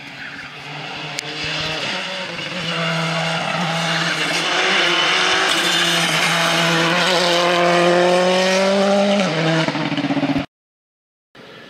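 Hyundai i20 R5 rally car's turbocharged four-cylinder engine at full throttle, growing louder as it approaches and rising in pitch, with a drop in pitch about nine seconds in. The sound cuts off abruptly just after, and a fainter engine follows after a brief silence.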